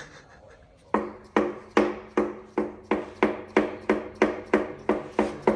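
A hammer striking metal: a steady run of sharp taps, about two and a half a second, each with a short metallic ring, starting about a second in.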